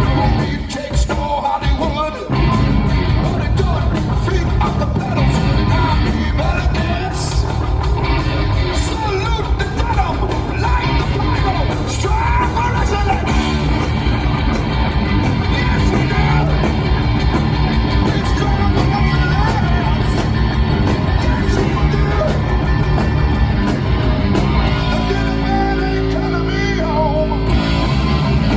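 Live rock band playing at full volume: heavy electric guitars, bass and drums, with a singer's vocal over them for most of the stretch.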